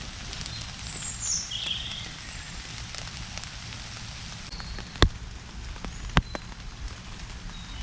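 Rain pattering and dripping on a basher tarp, with scattered drop clicks and two sharp knocks about five and six seconds in.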